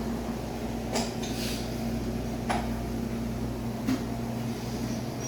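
Indoor airport ambience: a steady low hum with a faint steady tone, broken by a few short clinks and knocks, like dishes or objects being set down.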